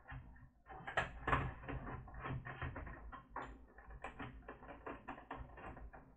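Plastic laptop case parts being worked apart by hand: a quick, irregular run of clicks and knocks, with two louder knocks about a second in.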